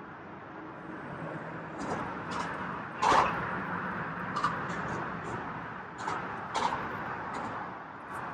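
Water lapping and wind around a small boat, with a few sharp knocks or splashes, the loudest about three seconds in, while an angler reels in a hooked fish.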